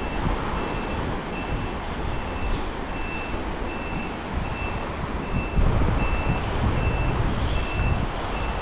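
A high electronic beep repeating at an even pace, about four beeps every three seconds, over a low rumbling background noise.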